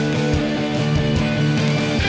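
Background rock music: guitar chords held over a steady drum beat.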